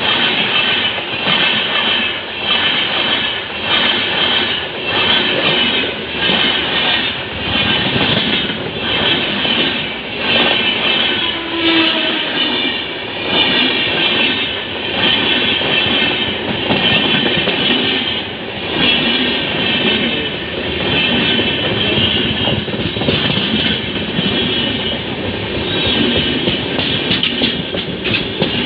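A train running past on the track, its wheels clattering over the rail joints in a steady beat a little under a second apart, loud throughout.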